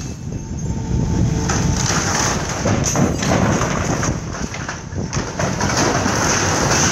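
JCB tracked excavator tearing down a timber-framed building with a metal roof: a continuous rumble of crunching, cracking and clattering wood and sheet metal, with many sharp cracks, a little louder toward the end.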